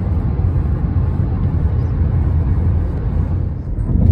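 Steady low rumble of road and wind noise heard from inside a moving car.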